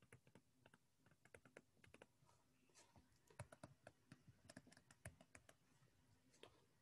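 Faint, irregular taps and clicks of a stylus writing on a tablet screen, busiest in the middle.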